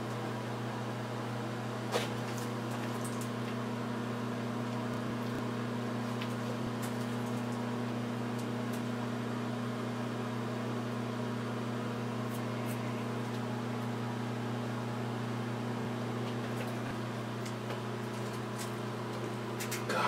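Microwave oven running with a steady electrical hum, while a touch-tone telephone burns inside. A sharper click comes about two seconds in, and a few faint crackles follow later.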